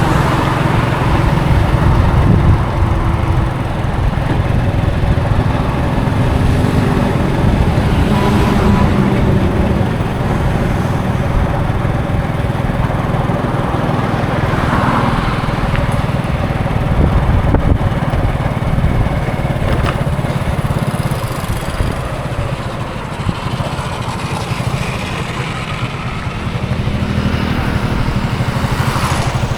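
Express passenger bus engine running steadily on the highway, a continuous low engine rumble under road noise.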